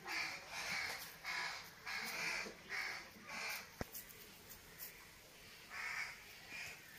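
A crow cawing over and over: a run of short harsh caws, about two a second, through the first half, then a pause and two more caws near the end. A single sharp click about halfway through.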